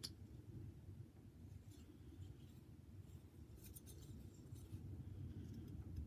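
Carving knife slicing shavings off a small wooden figure being whittled by hand: faint, short scratchy cuts in small clusters over a low steady hum.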